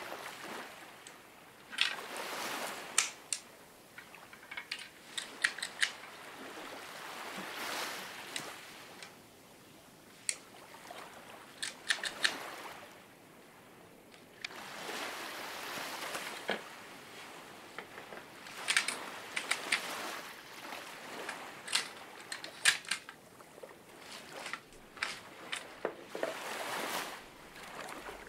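Handling noise: scattered sharp clicks among swells of rustling noise, each swell a second or two long.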